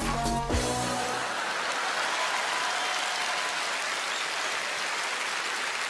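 A pop backing track ends about half a second in, then an audience applauds steadily.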